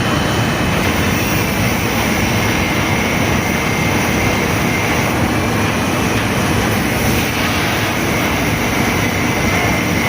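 Electric arc welding: a steady, unbroken crackling hiss.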